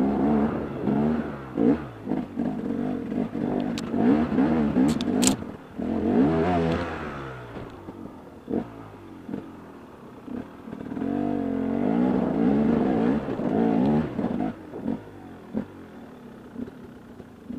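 Enduro dirt bike engine revving up and down in short bursts under load on a steep rocky climb, with stones knocking and clattering under the tyres. About halfway through it eases off, revs hard once more, then drops to a lower, quieter running near the end.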